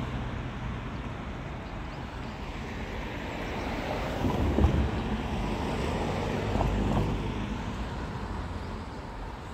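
Road traffic passing close by: cars driving past, the noise swelling through the middle, loudest about four and a half seconds in, then easing off.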